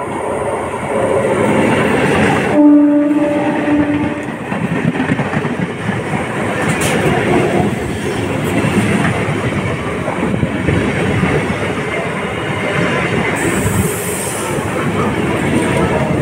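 EMU local train approaching and passing close by: a horn blast of about a second and a half around three seconds in, the loudest moment, then the steady rumble and clickety-clack of the coaches rolling past.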